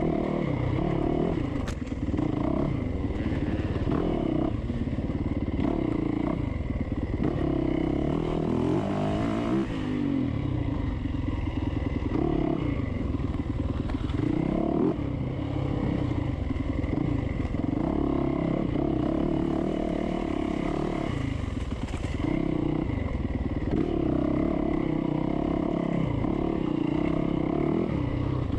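Dirt bike engine under hard riding, revving up and dropping back over and over as the rider gets on and off the throttle, with knocks and rattles from the bike over rough ground.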